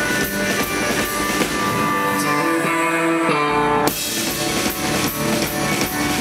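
Live rock band playing: electric guitar over a drum kit with a steady beat. About two seconds in the drums drop out, leaving held notes that step up in pitch. Just under four seconds in the full band comes back in at once.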